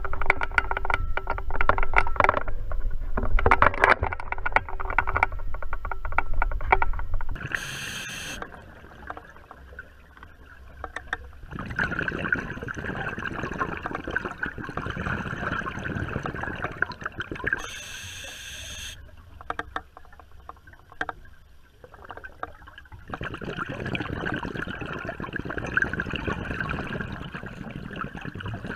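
Water splashing and knocking around a kayak for the first seven seconds or so. Then a muffled underwater rushing sound, which swells twice for several seconds at a time.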